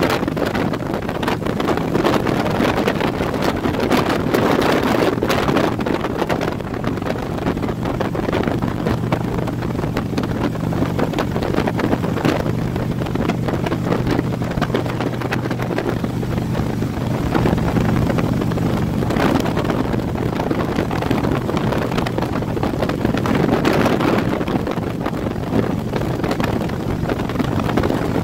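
Motorcycle engine running steadily at highway cruising speed, a low even hum, under heavy wind buffeting on the microphone.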